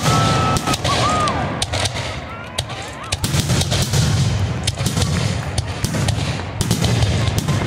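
Aerial firework shells bursting in quick succession: a dense run of sharp bangs and crackles over a deep rumble.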